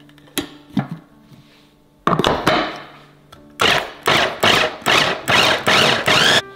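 Supor electric food chopper running in short pulses, its blades chopping chilies and tomatoes into sambal: one burst about two seconds in, then about six quick bursts of under half a second each from about three and a half seconds in. Two light knocks come first, as the glass lid goes onto the bowl.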